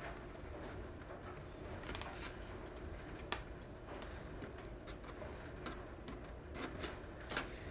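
Faint handling noises on a workbench: a few light knocks and clicks, the sharpest about three seconds in, as weight plates and foam parts are moved by hand, over a low steady room hum.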